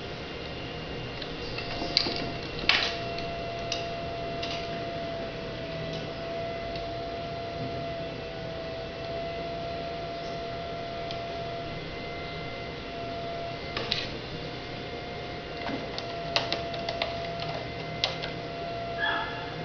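A cat's claws scratching and catching on sisal rope wrapped around a wooden stool leg, with scattered sharp clicks and scrapes, the loudest about two seconds in and a cluster near the end. A steady faint tone hums underneath.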